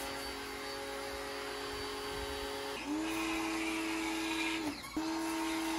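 Electric pressure washer running: a steady motor hum with the hiss of the water jet on the bike. The motor gets louder and higher about halfway through, winds down briefly near the end and spins straight back up.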